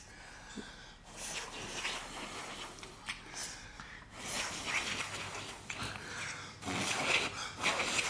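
A dog snorting and breathing noisily in repeated bursts, louder in the second half.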